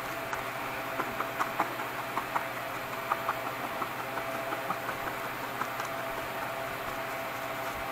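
Felting needle repeatedly stabbing into wool on a foam pad: short sharp clicks at irregular times, a couple a second, over a steady hum.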